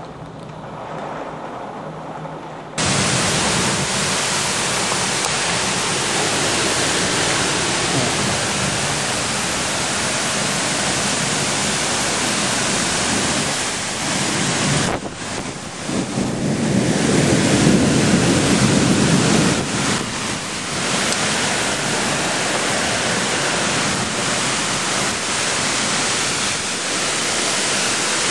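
Storm wind gusting through trees with heavy rain, wind buffeting the microphone: a loud, steady rush that jumps up suddenly about three seconds in and swells again past the middle.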